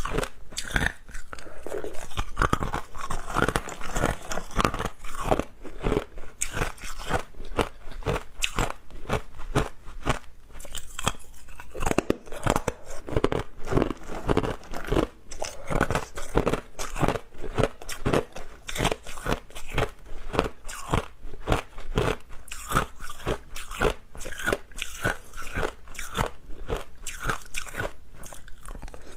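Hard clear ice being bitten and chewed close to the microphone: rapid, irregular crunching and cracking, several crunches a second.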